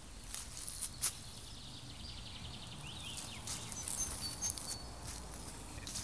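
Outdoor park ambience: a few irregular crackling steps on dry, leaf-strewn ground, with faint high bird chirps and a short trill in the middle over a low steady background rumble.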